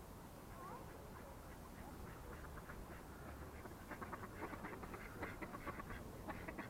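Ducks quacking, with a rapid run of short quacks starting about four seconds in.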